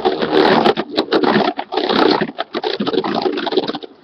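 Beyblade spinning top (Flash Sagittario) spinning after a launch, a loud dense buzz with many sharp clicks that cuts off suddenly near the end.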